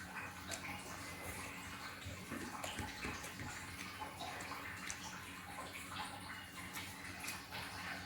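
Close-up eating sounds of a person chewing fried fish: wet mouth noises and many small irregular clicks, over a faint steady hum.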